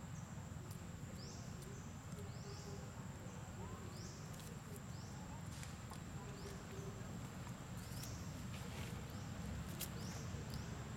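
Faint outdoor ambience: a low rumble under a thin steady high whine, with a short high rising chirp repeating every second or two and a few scattered clicks.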